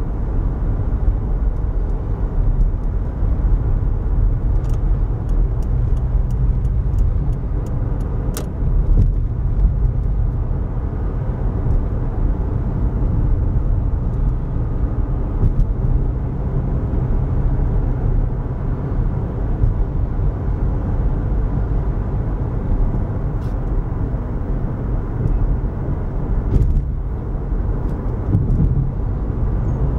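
Steady low rumble of a car's engine and tyres on the road, heard from inside the cabin while driving at speed. A run of light clicks comes between about five and eight seconds in, with a few single clicks later.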